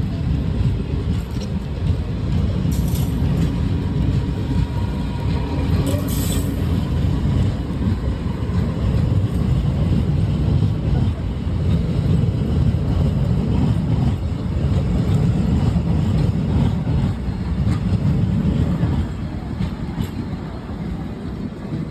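Passenger train running on the rails: a steady low rumble, with a couple of sharp clicks a few seconds in. It eases off somewhat near the end.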